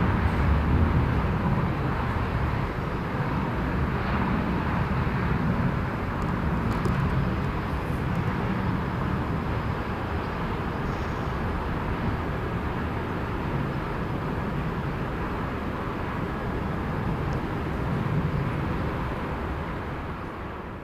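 Steady rumble of a Boeing 737-500's two CFM56-3 turbofan engines as the airliner climbs away, slowly fading and dropping off near the end.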